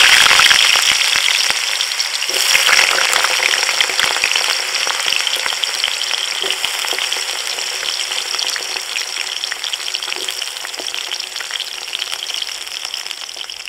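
Diced potatoes frying in hot oil in a karai: a loud, dense sizzle that surges again about two seconds in and then slowly settles to a steadier fizz.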